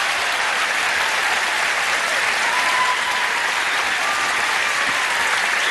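Large audience applauding steadily, with a few voices calling out over the clapping.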